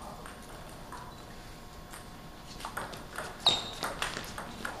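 Doubles table tennis rally: the ball clicking back and forth off the paddles and the table in a quick run of sharp ticks that starts a little past halfway. The loudest tick, about three and a half seconds in, has a short high ping.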